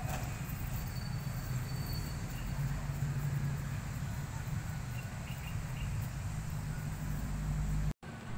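Steady low outdoor rumble with a faint hiss, cutting out for a moment near the end.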